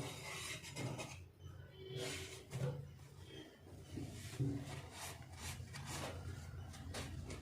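Light rubbing and scraping strokes with a few soft knocks, over a low steady hum: dust and cloth lint being cleaned out of the underside of a Jack F4 industrial sewing machine.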